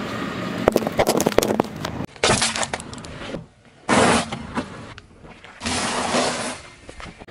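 Car tyre rolling slowly over small coloured eggs, crushing them with crackling and sharp cracks. Then, about two seconds in, the tyre crushes crunchy sandwich biscuits in three loud crunching bursts.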